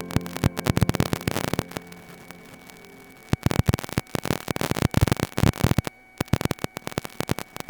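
Crackling static: dense, irregular clicks and pops over a faint hiss, with music fading out in the first second or two. The crackle gets louder about three seconds in and drops out briefly near six seconds.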